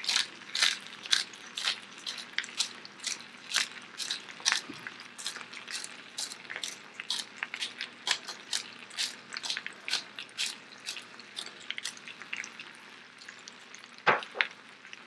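Hand-twisted pepper grinder cracking black peppercorns: a run of crunching clicks, about three or four a second, that thins out and stops, followed by a couple of louder knocks near the end.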